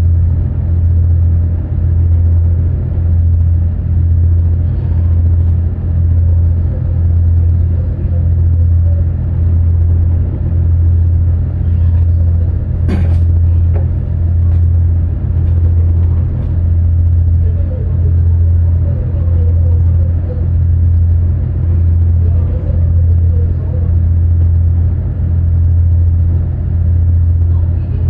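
Boat engine running steadily under way, heard inside the wheelhouse as a loud low drone that swells and dips every second or two. There is a single sharp click about halfway through.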